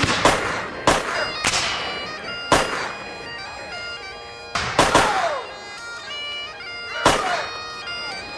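Bagpipes playing a tune over a steady drone, while about half a dozen sharp black-powder gunshots go off at irregular intervals.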